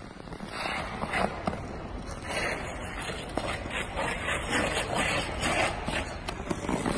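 Figure skate blades scraping and carving the ice in a run of short, uneven strokes during quick footwork, getting busier about two seconds in.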